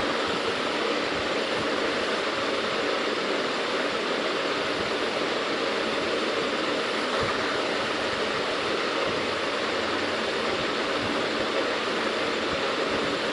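Steady rushing background noise that stays even throughout, with no distinct events.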